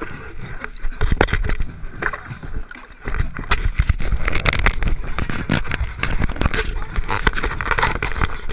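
Wind rumbling on the microphone of a small camera that is moving about, with many knocks and rubs of handling noise. It dips briefly just before three seconds in and then comes back louder.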